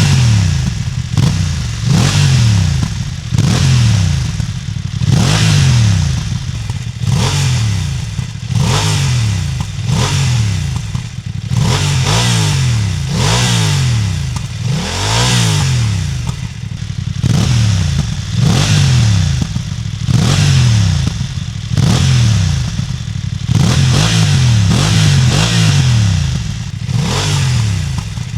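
BMW F900R's parallel-twin engine, warm, revved in quick throttle blips about once a second; each rev climbs and falls straight back, through a sport exhaust or the stock one.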